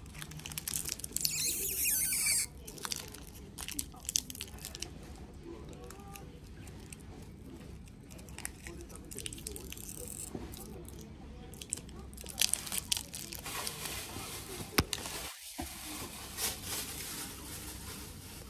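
Snack wrapper being torn open and crinkled by hand and teeth, with one loud rip about a second in, then scattered crinkles and clicks from handling the packet.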